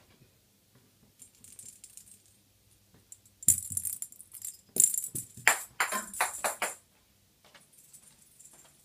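Small jingle bell rattling in a run of quick shakes, loudest for about three seconds in the middle, set off by a playing cat.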